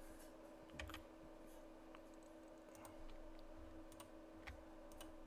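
Faint, scattered clicks of computer keys and mouse buttons, a few each second or so, over a faint steady hum.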